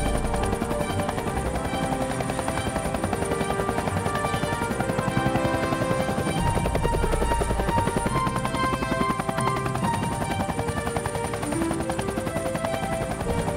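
Helicopter rotor chopping steadily, with music playing over it.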